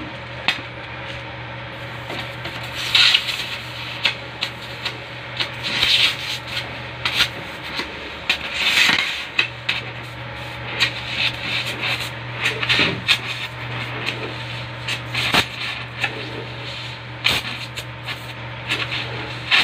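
Gas torch working a sheet-metal patch on a car body panel: a steady low hum and flame hiss that drop out for about two seconds midway. Over them come many small metallic ticks and louder scraping bursts about every three seconds.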